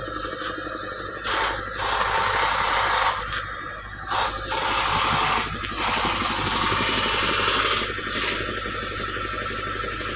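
An air tool run in four bursts of one to two seconds each, a dense rattling hiss, over a steady low engine hum.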